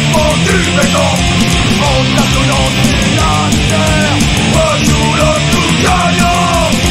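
Oi! punk rock recording: a loud, dense band mix with a steady drum beat and a melodic line of notes that slide up and down in pitch.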